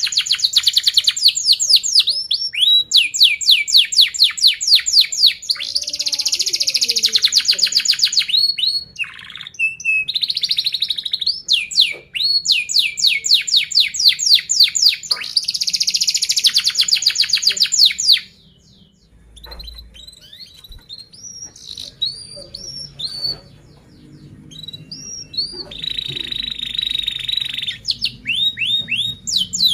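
Domestic canary singing: phrases of fast, rapidly repeated chirps and tight rolling trills, each lasting a few seconds. A little past the middle the song stops briefly, gives way to a few scattered chirps, and then resumes with a long held trill near the end.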